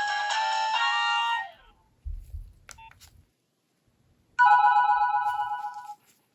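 Nokia 3300b ringtones playing through the phone's own speaker. A polyphonic melody stops about a second and a half in, followed by a low thump and a few faint clicks. About four seconds in, the next ringtone starts: a single sustained synth chord that fades out after about a second and a half.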